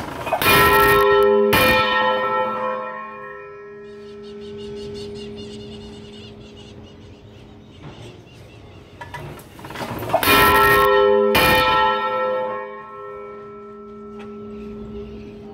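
Large bronze church bell being swung for a toll (dobre), struck twice about a second apart at the start and twice again about ten seconds in, each pair followed by a long hum that fades slowly.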